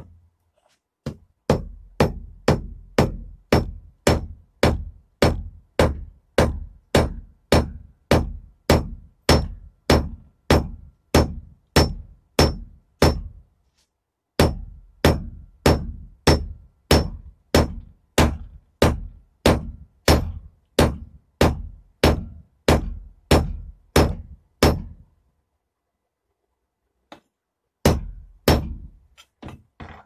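Hand hammer striking red-hot steel on an anvil in a steady rhythm of about two and a half blows a second, each blow a sharp ringing clang. The blows come in two long runs with a short break between them, then stop, and two more blows fall near the end.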